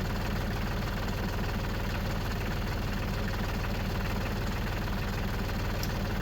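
New Holland tractor's diesel engine idling steadily, with a faint click near the end.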